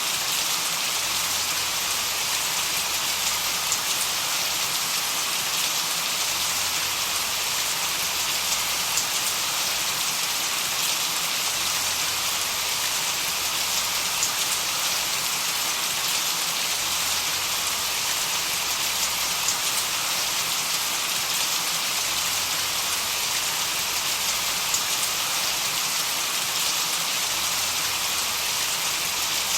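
Steady, even rain-like white-noise hiss, strongest in the high range, with faint scattered ticks like raindrops and a faint low hum that comes and goes.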